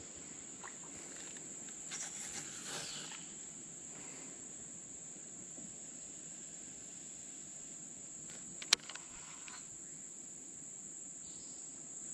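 Insect chorus: a steady high-pitched trill that does not change, with one sharp click about nine seconds in.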